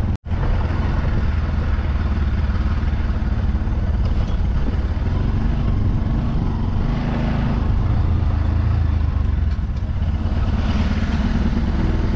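Motorcycle engine running steadily as the bike is ridden along. The sound cuts out for a moment just after the start.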